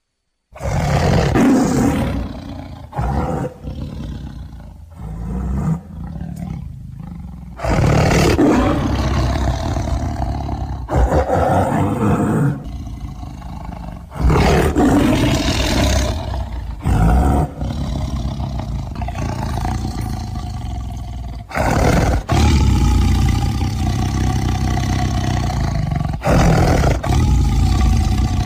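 A tiger roaring over and over, a series of deep, loud roars, several of them breaking off suddenly before the next begins.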